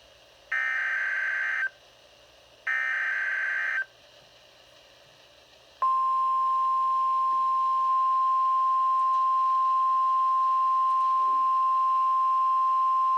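NOAA Weather Radio Emergency Alert System broadcast: the last two SAME header data bursts, each a harsh warbling digital screech about a second long with a second's gap between them. About six seconds in, the steady single-pitch 1050 Hz weather radio warning alarm tone starts and holds. The sequence signals the alert for a Severe Thunderstorm Watch.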